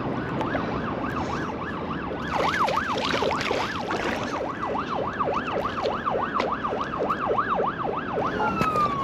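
Daiwa Revelry 2000 spinning reel whirring as a hooked tailor is played in. The pitch rises and falls in a quick regular cycle, about three times a second, and near the end gives way to one longer glide down and back up.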